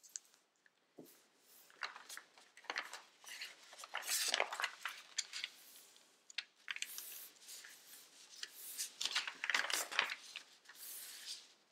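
A sheet of origami paper rustling and crinkling in irregular bursts as hands handle it, open it out and press and sweep it flat along its creases. The loudest bursts come about four seconds in and again near the ninth and tenth seconds.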